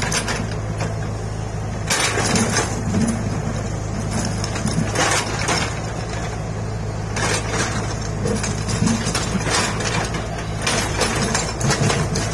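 Komatsu PC75 excavator's diesel engine running steadily under load while its bucket digs into stony soil, with a loud burst of rock scraping and clattering every two to three seconds.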